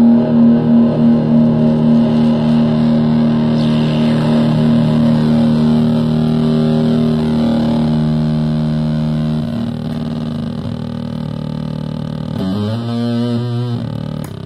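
Heavily fuzzed electric guitar note through a Fuzz Factory-style hybrid fuzz pedal with germanium AC128 and silicon 2N3906 transistors. The note is held while the pedal's knobs are turned, so its tone shifts: it pulses at first, thins out later, and warbles through a short pitch sweep near the end.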